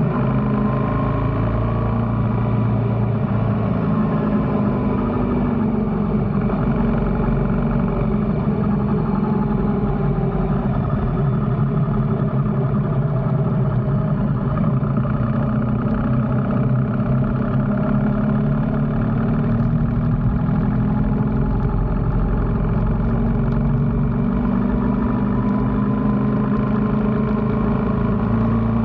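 BMW R1300GS Adventure's boxer-twin engine running steadily while riding, its pitch drifting gently up and down with small throttle changes, over a low rumble of road and wind noise.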